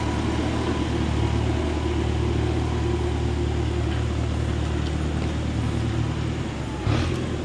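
Farm tractor's diesel engine running steadily as it tows a loaded trailer away; the engine note shifts near the end.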